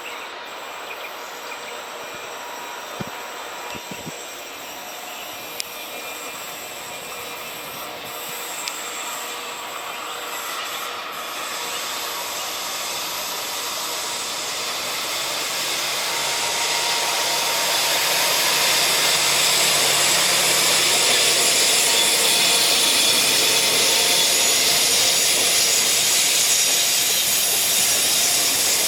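Rumble and rush of a train's wheels on the rails, growing steadily louder as it approaches and then staying loud, with faint thin squealing tones in it and a few small clicks in the first seconds.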